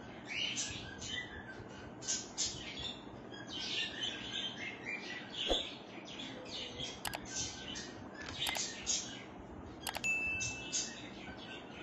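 Birds chirping continuously in a steady stream of short high calls. About halfway through come three sharp mouse clicks, the last followed by a short ding: a like-subscribe-bell button sound effect.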